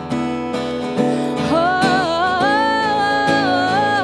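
Acoustic guitar strummed in a steady rhythm, with a woman's voice coming in about a second and a half in on a wordless sung note that rises and is held with a slight waver.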